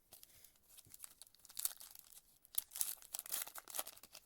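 Foil wrapper of a 2025 Donruss baseball card pack crinkling and tearing as it is handled and ripped open, in irregular crackles that grow busier and louder from about a second and a half in.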